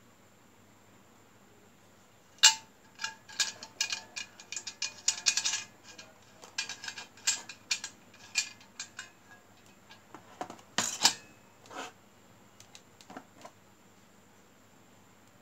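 Stainless steel hip flask, screw cap and shot glasses clinking and tapping against each other as they are handled, a run of irregular short metallic clicks starting about two and a half seconds in and dying away near the end.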